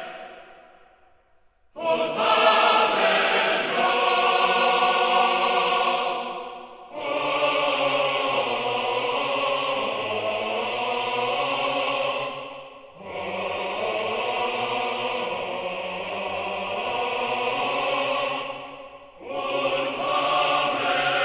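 Background music of choir-like voices holding long chords, in phrases of about five seconds with short breaks between them. It starts after nearly two seconds of quiet.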